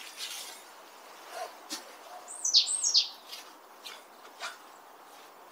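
A bird calling twice, two quick high notes each sweeping steeply down in pitch, about two and a half seconds in. Faint scattered ticks and scrapes of a rake working through a flower bed's leaf litter sound around it.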